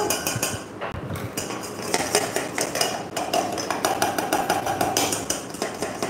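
Spoon working cocoa powder through a fine metal mesh sieve over a steel bowl: a quick, continuous run of small scrapes, taps and clinks against the mesh and rim.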